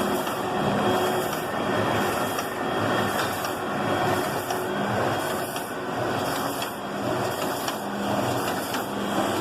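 Maqplas NCS 1100 plastic-bag cut-and-seal machine running, a steady mechanical noise with a regularly repeating beat as it cycles.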